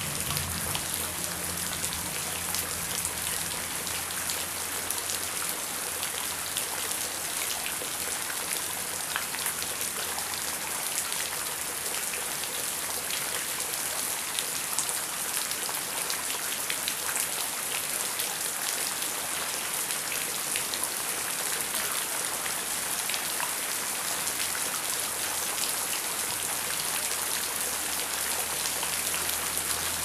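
Heavy rain falling steadily, with a dense, even hiss and countless small drop hits throughout.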